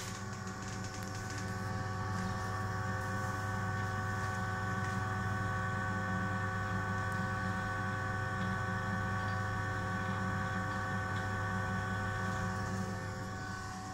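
The ebm-papst RG148/1200 blower fan of a Baymak Lectus 115 kW gas boiler, with the burner lit, runs as a steady hum with several constant whine tones. The repaired fan controller is modulating smoothly and is settling at minimum output. The hum swells slightly after a second or two and eases near the end.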